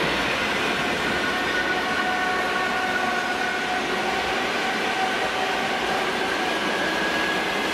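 ED2T DC electric multiple unit rolling past close by as it pulls away from a stop, a steady rumble of wheels on rails with a faint steady whine.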